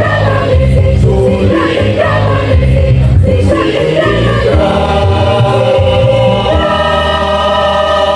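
Choir singing in close harmony over a pulsing low part. About six and a half seconds in, the voices settle on a long held chord.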